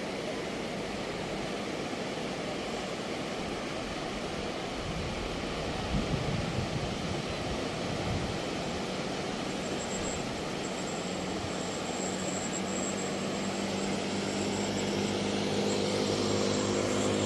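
Steady rushing noise of surf breaking on the beach, with a motor's steady droning hum coming in and growing louder over the last few seconds.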